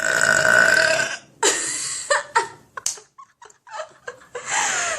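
A girl's long, drawn-out burp on a steady pitch that stops about a second in, followed by a few shorter, broken bursts of sound.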